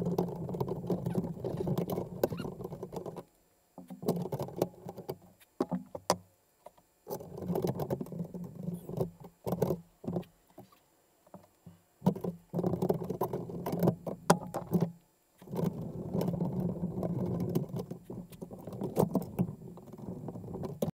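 Hand work on a computer case while fans are being screwed in: stretches of dull scraping and rubbing a few seconds long, broken by short pauses, with scattered sharp clicks of metal and plastic parts.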